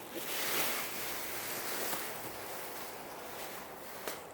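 Dress fabric rustling as dresses are handled, a soft, even swishing that swells about half a second in and eases off toward the end.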